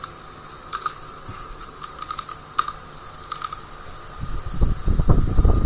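Computer keyboard typing: scattered single keystrokes. About four seconds in, a louder low rumbling noise comes up.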